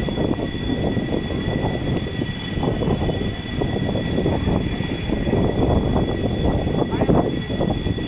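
Busy city street noise: a steady low rumble of traffic at an intersection, with no clear single event.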